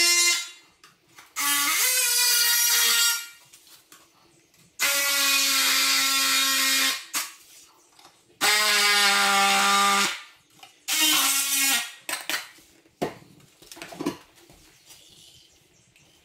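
Oscillating multi-tool cutting a wood board in repeated runs of one to two seconds, a loud buzzing whine whose pitch shifts from run to run. Two short knocks near the end.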